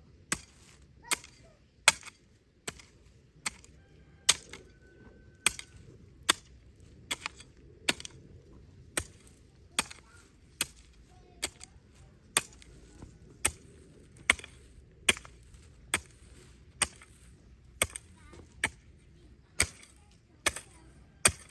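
A hand tool striking over and over in a steady chopping rhythm, one sharp blow about every 0.8 seconds.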